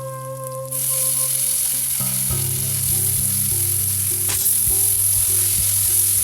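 Food frying in hot oil in a pan, a loud sizzle that starts suddenly under a second in and then holds steady.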